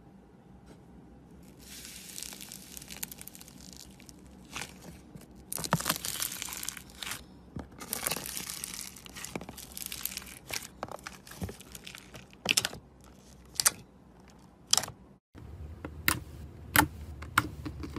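Fingers pressing and squishing foam-bead slime: crunchy crackling and crinkling as the beads are squeezed, with many sharp clicks. After a brief break, fingers press a clear glitter slime, giving a few loud sharp pops over a low hum.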